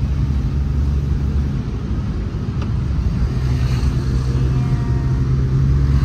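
Engine and road noise heard inside the cabin of a moving van: a steady low rumble and hum.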